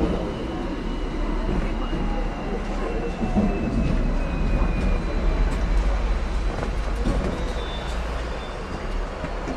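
Hong Kong double-decker electric tram running along its rails, heard from inside the car: a steady low rumble, with a faint high whine that slowly falls in pitch over the first several seconds.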